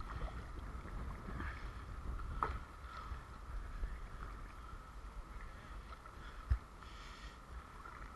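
Kayak paddle dipping and splashing quietly in calm river water from an inflatable kayak, over a low rumble of wind on the microphone. A single dull knock comes about six and a half seconds in.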